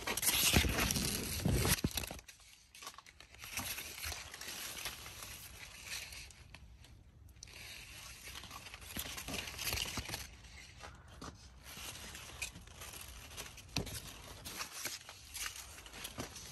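Corn leaves rustling and scraping as they are brushed and pushed aside by hand. The rustling is loudest in the first two seconds, then comes in shorter, fainter rustles.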